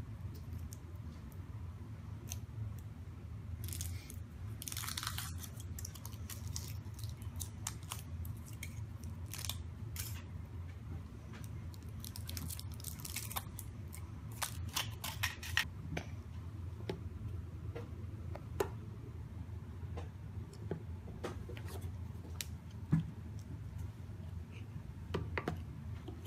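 Thin foil wrapper of a Kinder Surprise chocolate egg crinkling and tearing as it is peeled off by hand, in several short bursts, with scattered small clicks and taps afterwards. A steady low hum runs underneath.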